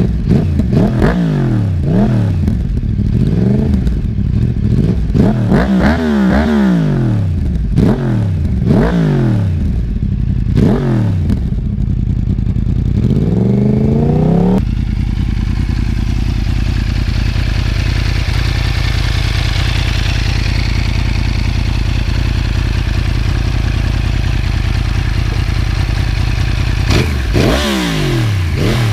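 Yamaha R1 inline-four engine revved in repeated quick blips through its twin underseat exhausts, each rising sharply and falling back. About halfway through it settles to a steady idle, and near the end the revving starts again.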